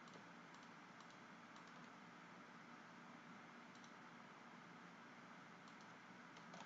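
Near silence: room tone with a few faint, scattered clicks of a computer mouse and keyboard.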